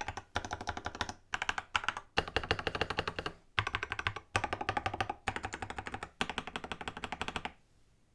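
Typing on a RAMA WORKS KARA mechanical keyboard built with a polycarbonate plate, lubed and filmed Creamsicle linear switches and Infinikey Cafe keycaps: rapid keystrokes in bursts with short pauses between them, stopping about half a second before the end.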